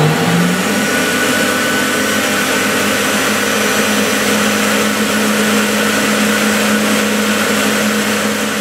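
Flowbench motors running steadily at test speed, a loud, even rush of air drawn through the intake port of a stage 4 ported classic Mini Cooper cylinder head, with a steady motor hum underneath.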